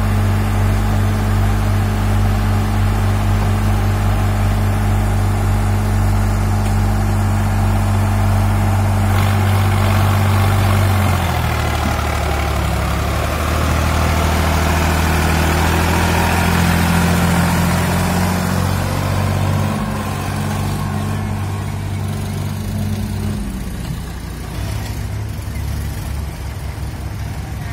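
Sonalika tractor's diesel engine idling steadily, then revving up about eleven seconds in as it pulls away with a trolley full of soil. The engine note shifts again and grows quieter in the last few seconds.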